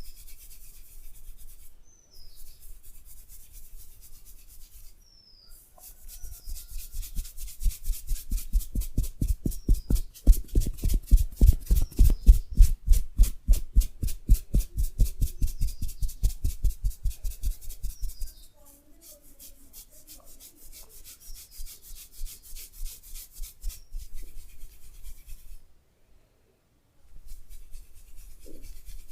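Hands rubbing and massaging a person's head and hair close to the microphone. Soft rubbing gives way, about six seconds in, to fast, even rhythmic strokes at several a second, which ease back to softer rubbing after about twelve seconds.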